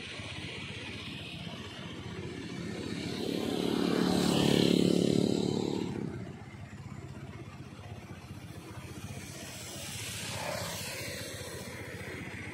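A motor vehicle drives past: its engine and tyre noise swell to a peak about four to five seconds in and fade by six seconds. A fainter pass follows a few seconds before the end, over a steady background of traffic.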